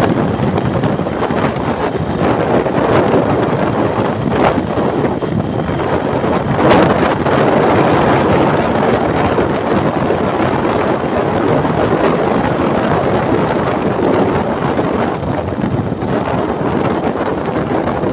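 Wind rushing over the microphone of a phone held out on a moving motorcycle, a loud steady rush with vehicle and road noise beneath it.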